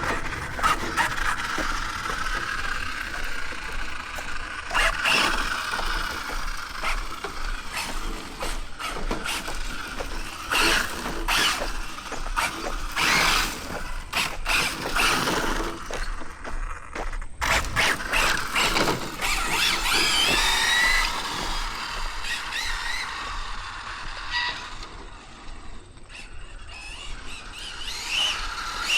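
ARRMA Infraction 6S BLX RC truck's brushless motor whining through repeated bursts of throttle, the pitch rising and falling, with its tyres scrubbing and squealing on pavement.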